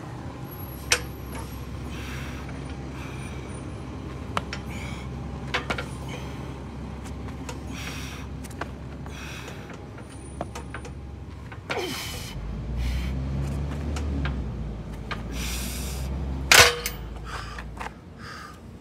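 Heavy strongman yoke being carried through step-ups: a few sharp metal clanks, the loudest near the end, with repeated hard breaths over a steady low rumble that grows louder about two thirds of the way through.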